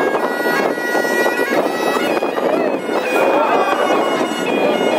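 Bagpipes playing a dance tune over a steady drone.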